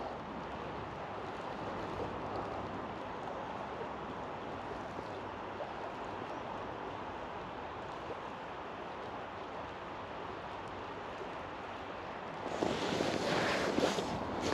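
Steady rushing of a flowing river. It gets louder for the last couple of seconds.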